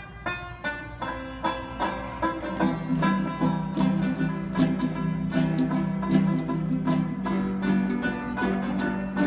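Bluegrass-style music on banjo and other plucked strings, a quick run of picked notes, with a fuller low accompaniment coming in about two and a half seconds in.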